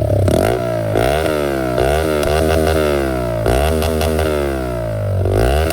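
Motorcycle engine with no silencer fitted, revved hard several times, its loud raw exhaust note rising and falling with each blip of the throttle.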